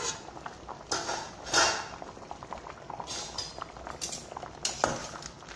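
Pot of cut tapioca boiling in water, bubbling steadily, with several sharp metallic clinks and knocks of the steel pot and utensils scattered through.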